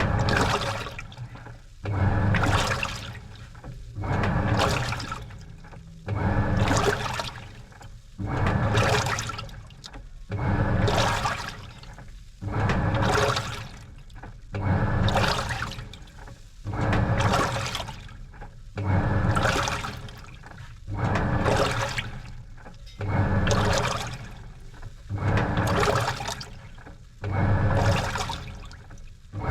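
Washing machine agitating a load of laundry in water: a swish of sloshing water about every two seconds as the drum or pulsator turns, over a low motor hum.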